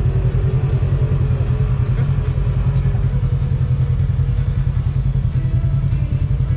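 UTV (Polaris RZR side-by-side) engine running steadily at low revs, a loud, even, fast-pulsing low rumble heard close up.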